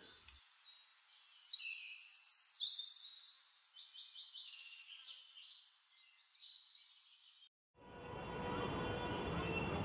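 Birds chirping over faint outdoor ambience, with a run of quick, falling chirps in the first few seconds. Near the end the sound drops out for a moment and a louder steady background noise comes in.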